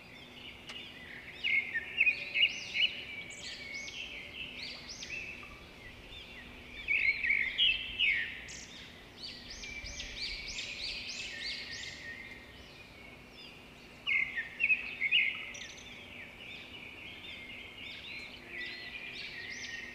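Birdsong: many small birds chirping and twittering in quick, high calls, swelling in louder flurries a few times, over a faint steady low hum.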